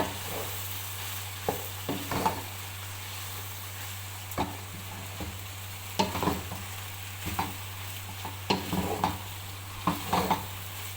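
A cooking spoon stirring boiled spaghetti into chicken sauce in a pan, with irregular knocks and scrapes of the spoon against the pan over a steady low hum.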